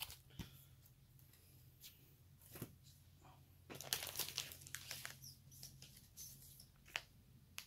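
Comic books being handled in their packaging: soft crinkling and rustling of plastic and paper, densest a little after the middle, with a few sharp clicks. A steady low hum sits underneath.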